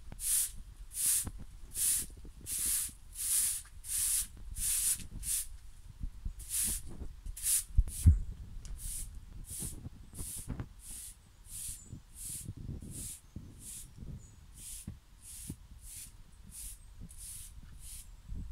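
Straw broom sweeping concrete: a steady series of brushing swishes, one or two a second, growing fainter in the second half. A loud thump about eight seconds in.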